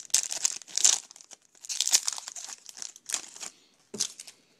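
Foil wrappers of Topps Chrome baseball card packs crinkling and tearing open, in three or four bursts of crackling. A single sharp knock comes about four seconds in.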